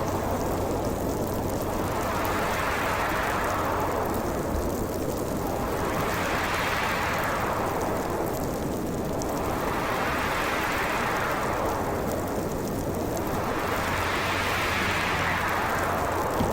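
Howling wind of a heavy winter storm: a steady rushing noise with a higher whistle that swells and dies away in gusts about every four seconds.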